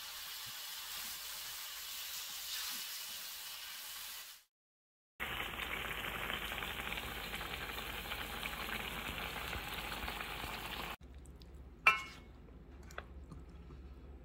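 Kimchi and pork sizzling as they are stir-fried in a frying pan, then, after a short break, kimchi stew bubbling and sizzling in the pan. Near the end, quieter, with one sharp utensil clack and a few light taps as a spoon works in the pan.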